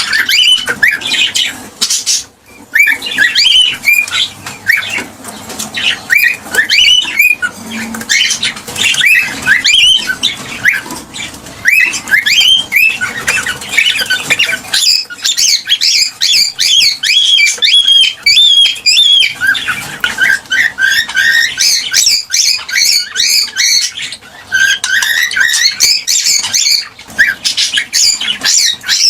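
Cockatiel chirping and calling in rapid runs of short, gliding whistles, several a second, with a brief lull about two seconds in and busier, higher chirping from about halfway.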